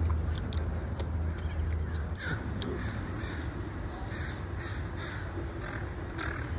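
Crows cawing: a run of short harsh calls repeated about every half second, starting about two seconds in. Before them come a few light clicks, over a low steady hum.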